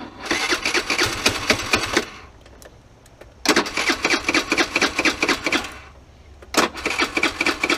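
Tao Tao Thunder 50cc scooter's electric starter cranking its cold four-stroke engine in three bursts of about two seconds each, with a fast, even rattle and the engine not catching. This is a cold start without the choke plunger held down, and the owner blames a faulty electric choke.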